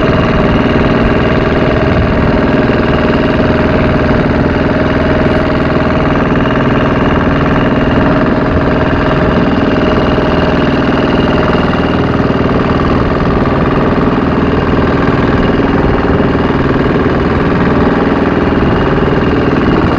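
Wooden boat's engine running steadily under way, a constant drone that holds one pitch throughout.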